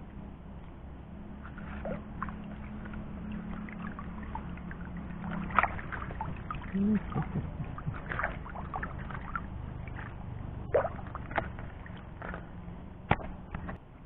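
Water sloshing around a wading angler, with scattered small splashes and drips. A faint steady low hum sits under the first few seconds.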